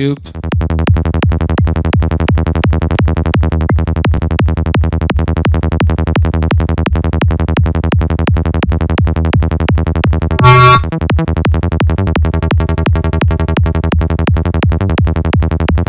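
Sylenth1 synth bass patch looping a rapid, even stream of short notes at 170 BPM, high-tech psytrance style, run through FabFilter Saturn's warm tube saturation. A brief louder, brighter burst cuts in about ten and a half seconds in.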